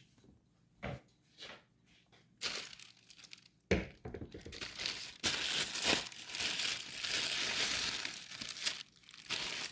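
A couple of soft knocks, then from about two and a half seconds in a long stretch of plastic wrapping crinkling and rustling, with a short break near the end: plastic being handled while the replacement ATV air filter is unwrapped.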